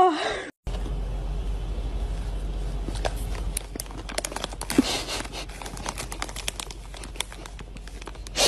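A short wailing cry at the very start, then a cat with its head inside a plastic snack packet, the packet crinkling and crackling over a low hum.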